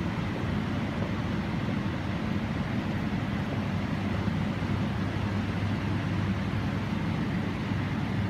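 Steady low mechanical hum and rumble, even and unbroken, with a faint high tone above it.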